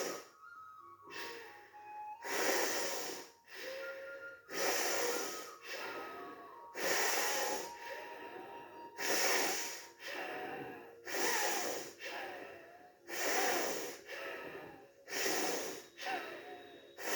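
Forceful nostril breathing of Vama Bhastrika pranayama, breathing hard in and out through the left nostril with the right one closed by the thumb: about one sharp breath a second, alternating louder and softer. Soft background music underneath.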